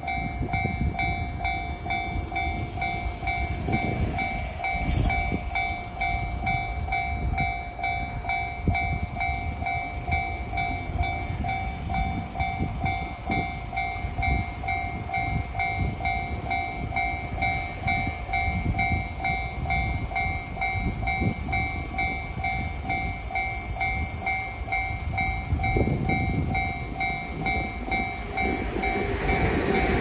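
Japanese railway level-crossing alarm in the JR standard sound, an electronic bell ringing over and over while the crossing is closed. Near the end a train's rumble grows as it comes up to the crossing.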